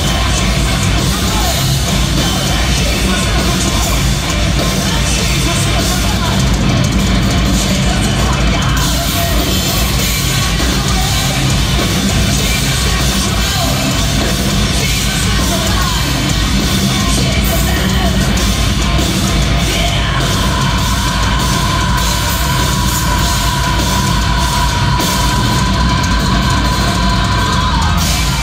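Live hard rock band playing loudly, with drum kit and distorted electric guitars, heard from among the audience. A high note is held steadily for about the last eight seconds.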